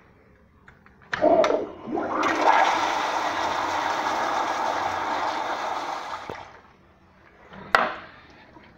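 Kohler Anglesey flushometer toilet flushing. The valve opens with a sudden start about a second in, and water rushes steadily through the bowl for about five seconds before tailing off. A single sharp knock comes near the end.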